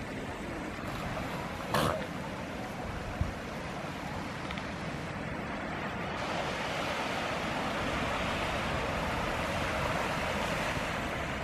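Steady wash of surf and wind along a beach, swelling slightly in the second half, with a short sharp knock about two seconds in.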